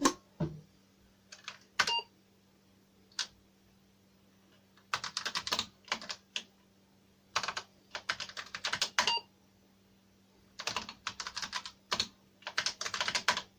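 Typing on an Apple II keyboard: several quick runs of keystrokes with short pauses between them. A faint steady low hum sits underneath.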